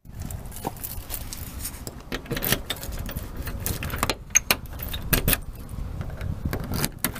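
A bunch of keys jangling on a ring while one key is pushed into and turned in a doorknob lock, with many irregular small metallic clicks and rattles.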